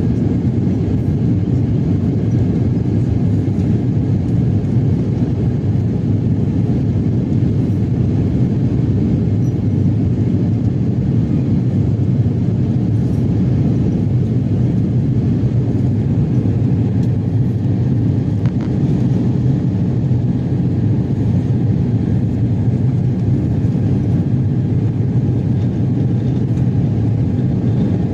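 Airliner cabin noise in flight: a steady, unchanging low rumble of engines and rushing air.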